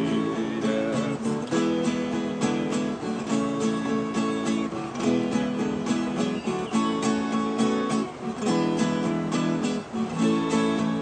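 Viola caipira and acoustic guitar playing together in an instrumental passage between verses, strummed chords with a steady rhythm.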